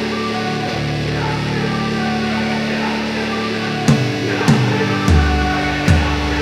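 Rock-style background music: held, steady chords, with a beat of sharp hits coming in about four seconds in.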